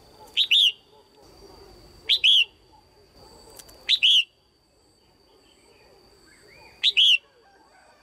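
Female red-whiskered bulbul calling: four loud, short calls about two to three seconds apart, each a quick sharp note followed at once by a slightly longer, falling one.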